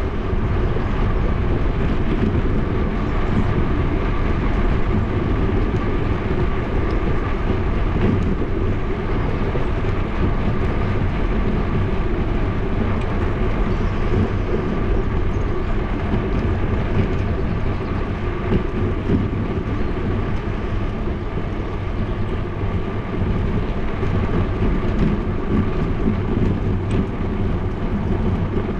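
Wind rushing over a bike-mounted GoPro microphone, with tyre noise on asphalt, during a fast downhill ride.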